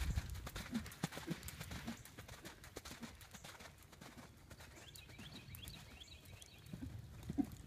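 Draft-cross horse cantering on the sand footing of a riding arena: soft, muffled hoofbeats in a steady rhythm. They are loudest at the start, fade through the middle as the horse moves off, and pick up again near the end.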